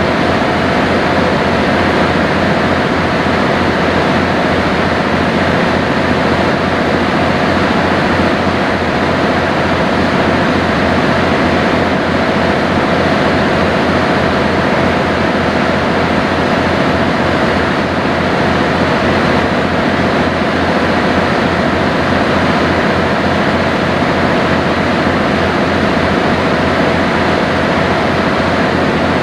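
Steady drone of a sightseeing boat under way: the engine runs at a constant cruising speed, with a low throb and a steady hum, and water rushes along the hull.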